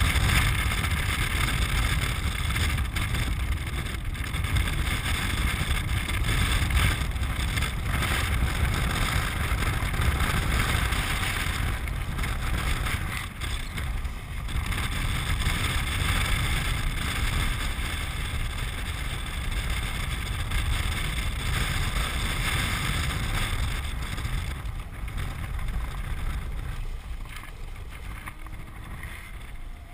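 Wind buffeting the camera microphone over the rolling rumble of a land yacht's wheels on a hard, dry lake bed as it sails along; a steady rushing noise that eases over the last few seconds.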